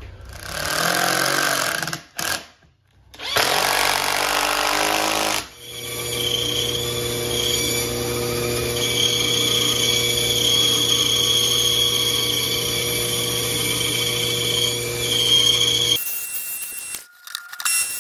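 A cordless drill drives screws in two short bursts, about two seconds each. Then an old Craftsman bandsaw runs with a steady hum, cutting slowly through two thick pine boards screwed together.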